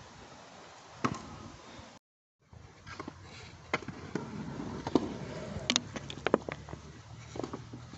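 Stunt scooters clacking and knocking on asphalt and a skate ramp: one sharp hit about a second in, then many irregular clacks after a half-second gap of silence.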